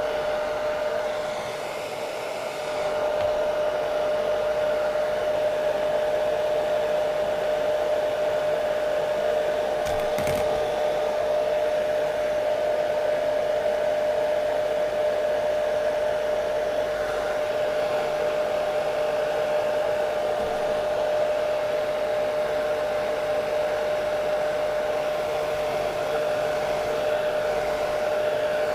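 Hair dryer running steadily: a rushing blow of air with one steady whining tone in it. The level dips briefly about two seconds in.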